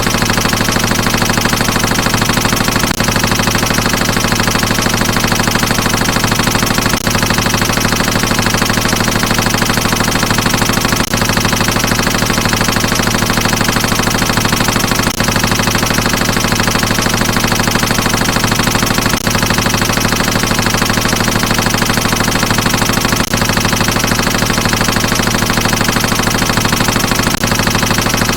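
Sustained automatic machine-gun fire: a continuous, very rapid stream of shots, dipping briefly about every four seconds.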